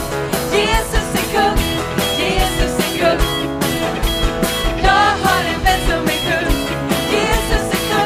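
Live band playing an upbeat song with a steady drumbeat and guitar, with voices singing along.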